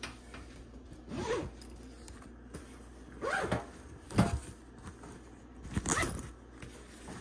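Backpack zipper being pulled in about four short strokes, the sharpest and loudest about four seconds in.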